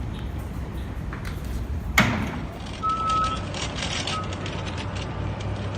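New York City Subway R179 train standing at the platform: a sharp clunk about two seconds in, then a short beep and a second briefer beep, as the car doors open, over a steady low rumble.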